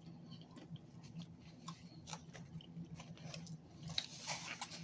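Close-up chewing of flatbread pizza, faint and irregular small clicks and crackles of the mouth working the crust.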